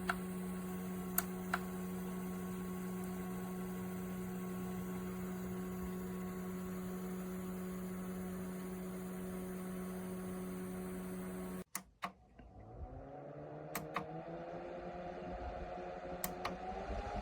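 Small desktop evaporative cooler's fan motor running with a steady hum. About twelve seconds in it cuts out with a couple of clicks, then the motor spins up again, its pitch rising and levelling off, with a few light clicks.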